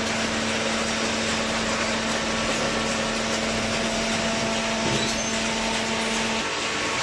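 Steady machine running: a constant hum under a dense, even hiss, the hum shifting slightly about six and a half seconds in.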